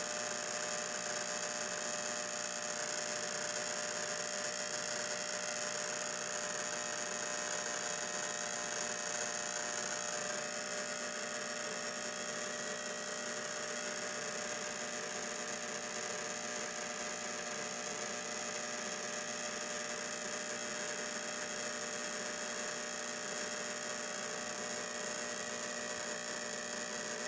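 Steady electrical hum and static hiss from a homemade radio rig built from a foil-wrapped cable spool, an ignition coil and a spark gap. It drops slightly in level about ten seconds in.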